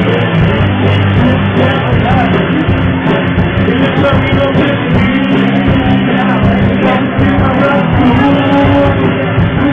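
Live rock band playing loudly, electric guitar to the fore, with drums keeping a steady beat.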